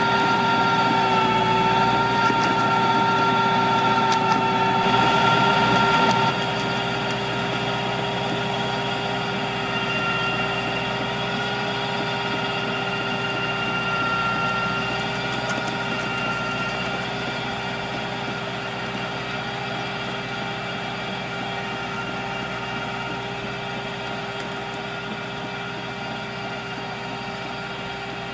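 Tractor engine running with a tractor-mounted pruning machine working, a steady mechanical hum with a whine in it. About six seconds in it drops in level and then fades slowly.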